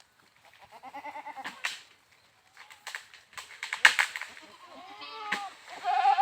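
Goats bleating: a wavering bleat about a second in, a shorter one near five seconds and a loud one near the end. In between comes a cluster of sharp clicks, loudest about four seconds in.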